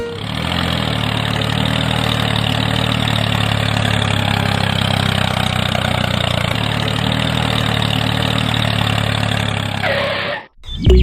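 Small engine of a miniature tractor running steadily at idle, then cutting off abruptly about ten and a half seconds in.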